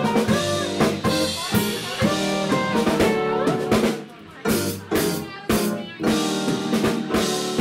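Instrumental jazz-funk band playing live: drum kit, keyboard and electric guitar. About four seconds in the band drops out briefly, then comes back with a few accented hits together before the groove fills back in.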